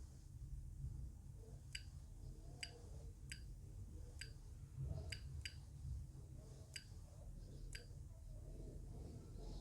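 Faint, sharp ticks, about eight at uneven spacing, from key presses during password entry on a DataLocker DL4 encrypted drive's keypad, over a low steady hum.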